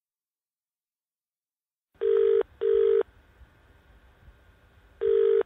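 British-style telephone ringing tone heard down the line as a call rings out: a double ring, two short beeps close together, about two seconds in. The next double ring begins near the end, with faint line hiss between.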